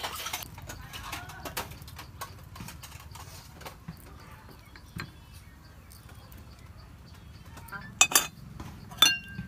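Metal tongs scraping and clicking against a metal pot as noodles and eel soup are lifted out and served onto a ceramic plate, with two sharp ringing clinks near the end.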